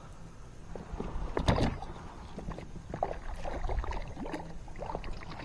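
Small knocks and clicks against a plastic fishing kayak as gear is handled, with one sharper knock about a second and a half in, over a low rumble.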